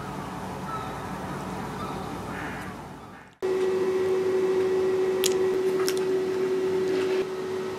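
Faint background noise that fades out, then, after a sudden cut about three seconds in, a loud, steady single-pitched machine hum with a few light clicks.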